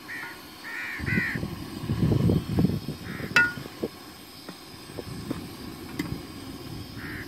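Crows cawing, about five short caws: three in the first second or so, one about three seconds in and one near the end. A single sharp clink, the loudest sound, comes just after the middle caw.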